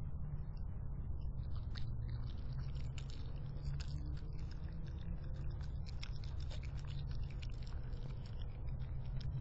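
A raccoon chewing and crunching on leftover chicken scraps right at the microphone: quick, irregular crunchy clicks, thickest from about a second and a half in until near the end, over a steady low hum.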